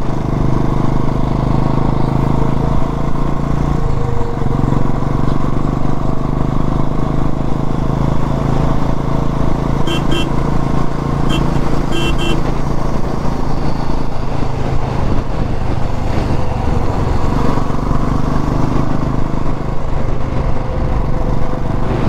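Motorcycle engine running steadily at cruising speed under loud wind rush, heard from on the bike. Around the middle a vehicle horn gives three short beeps.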